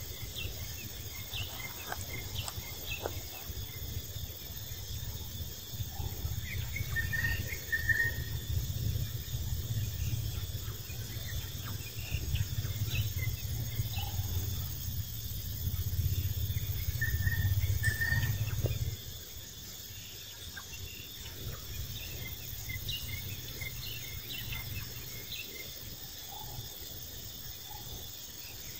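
Outdoor ambience of insects droning steadily in high tones, with a few short chirps now and then and a low rumble that stops abruptly about two-thirds of the way through.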